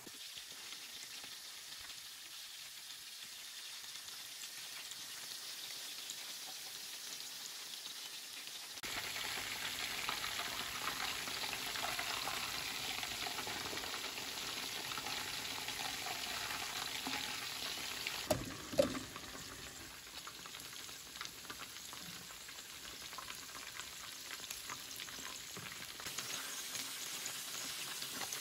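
Flour-coated chicken legs deep-frying in hot oil: a steady sizzle that gets louder about a third of the way in, with a couple of knocks about two-thirds through.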